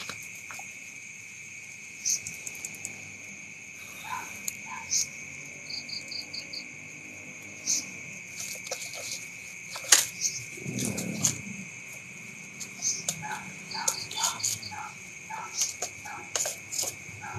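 Crickets chirring steadily in a high continuous trill, with scattered light clicks and crackles over it and one sharp knock about ten seconds in, followed by a short low rustle.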